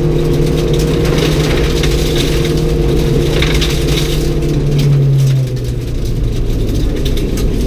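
Rally car engine running hard, heard from inside the cabin, with gravel noise and a spatter of stones and rattles against the car. About five and a half seconds in the engine note drops and quietens.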